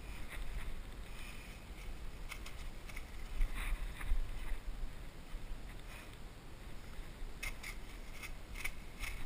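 Steady low wind rumble on the microphone, with scattered crackles of dry leaves as a small landed bass flops on the leaf-covered bank, and a quick run of crackles near the end.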